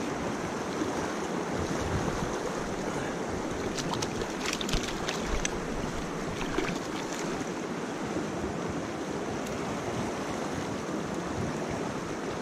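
Mountain trout stream running over rocks, a steady wash of moving water. A few short splashes come around the middle as a small trout is handled in the water.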